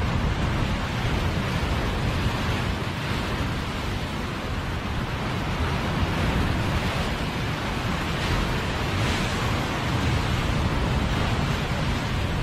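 Ocean surf breaking and washing against a rock ledge: a steady rushing of waves that swells and eases, with a low rumble of wind on the microphone.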